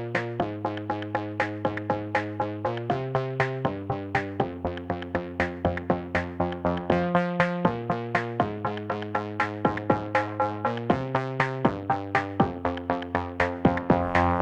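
Electronic background music: a fast, evenly pulsing synthesizer pattern of repeated notes, with the chord changing every second or so.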